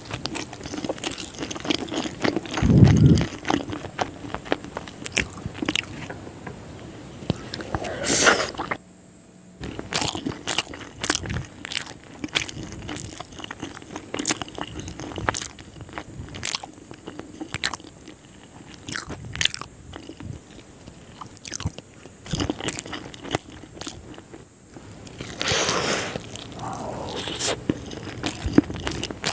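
Close-miked eating of crispy fried chicken: biting, crunching and chewing, with many sharp crackly clicks and the meat being torn apart by hand. A dull low thump stands out about three seconds in.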